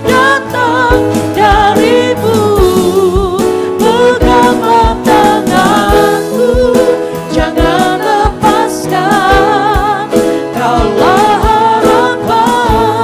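Christian worship song: sung vocals with vibrato over a band accompaniment, with a steady drum beat about twice a second.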